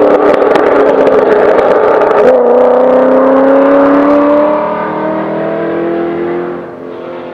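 Chevrolet Corvette C6's V8 exhaust under hard acceleration, pulling away: the note drops at an upshift about two seconds in, then climbs steadily through the next gear as it fades into the distance. A few sharp crackles in the first second.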